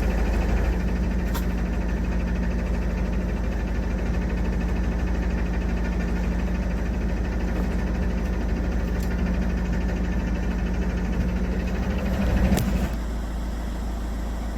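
Narrowboat engine running steadily at low revs. Near the end it gets briefly louder, then drops to a quieter, steady idle.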